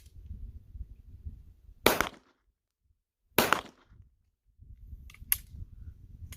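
Two shots from a Canik TP9SFX 9mm pistol, about a second and a half apart, each with a short ringing tail. About five seconds in come two fainter, sharper cracks.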